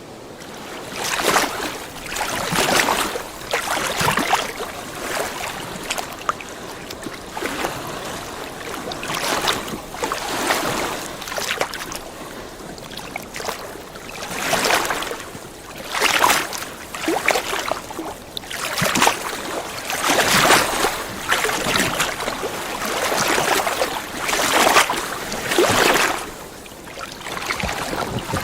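Small lake waves lapping and splashing at the water's edge in irregular swells every second or two, with little trickles and drips between them.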